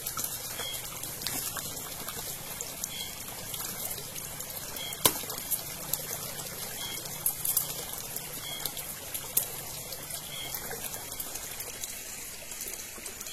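Steady night-time rainforest ambience: a continuous high hiss, a faint high chirp about every two seconds, and a few sharp clicks, the loudest about five seconds in.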